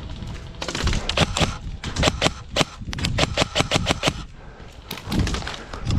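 Airsoft rifles firing, a quick string of sharp shots about five a second, lasting a few seconds.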